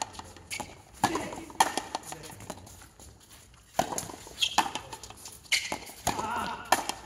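Frontenis rally: a hard rubber ball cracking off racket strings and the concrete front wall, about six sharp hits a second or so apart, each with a short echo.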